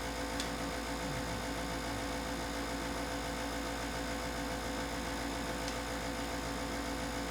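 Steady electrical mains hum with hiss, with a faint small click about half a second in and another near six seconds.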